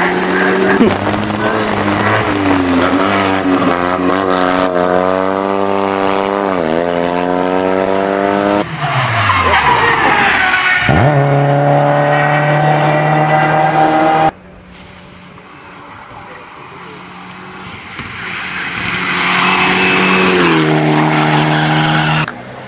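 Hillclimb race car engines at full throttle across several cuts. First an engine revs up and steps down in pitch at each gear change. Then a car sweeps past with a sharply falling pitch, and after a sudden drop in level a distant car climbs through its gears, growing louder.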